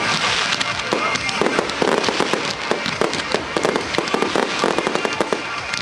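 Professional display fireworks going off in quick succession: a dense run of sharp bangs and crackles from bursting shells, with music playing along.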